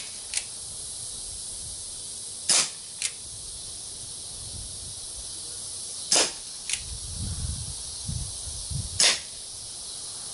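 Umarex Colt Single Action Army CO2 BB revolver firing three sharp shots a few seconds apart, each followed about half a second later by a fainter click.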